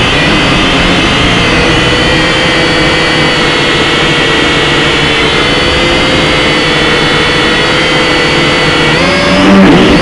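Small aircraft's engine drone heard from inside the cabin in flight, steady with several held tones. Near the end the pitch dips briefly and comes back up.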